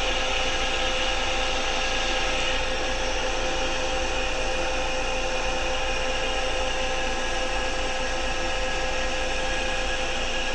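Electric motor running steadily on a variable-frequency drive, giving a constant whine of several steady tones over a hiss.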